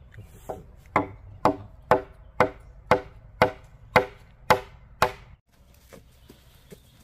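Machete chopping bamboo poles: about nine sharp, evenly paced strikes, roughly two a second, each with a short hollow ring, stopping a little after five seconds in.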